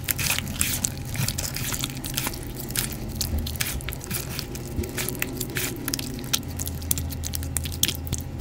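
Hands squeezing and kneading wet, dyed gym chalk paste in a plastic bowl: a wet squishing with many small crackling clicks, over a low steady hum.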